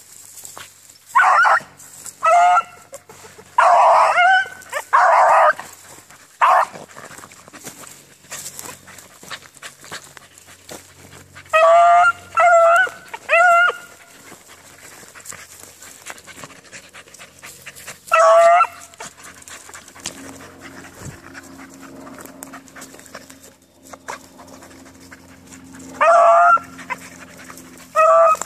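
Beagles baying as they work a scent line: short pitched bawls come a few at a time, in bouts separated by quiet gaps of several seconds.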